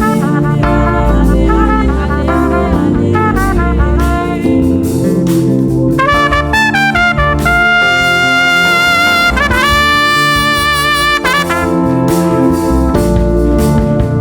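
Solo trumpet playing over a band accompaniment: short phrases, a rising run, two long held high notes, then fast runs again near the end.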